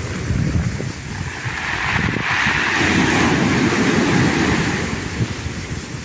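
Small sea waves breaking and washing up the beach: the hiss of the wash swells about two seconds in and fades again near the end. Wind buffets the microphone, a fluttering low rumble underneath.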